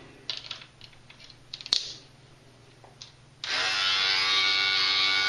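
A few plastic clicks as a comb attachment is fitted to an electric beard trimmer. About three and a half seconds in, the trimmer switches on and runs with a steady buzz.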